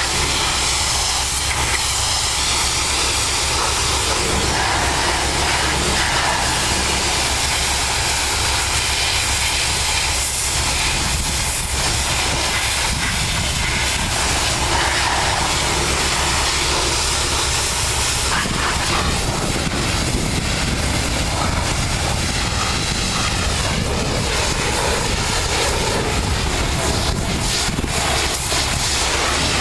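Pressure washer wand spraying a semi-truck's fuel tank and cab: a steady hiss of water hitting metal over a constant low hum, without a break.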